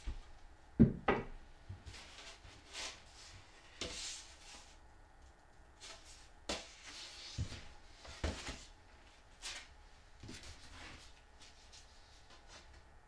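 Thin plywood and MDF boards being handled on a workbench: a string of knocks as the boards are picked up and set down, with short rubbing and sliding swishes between them, the loudest knock about a second in.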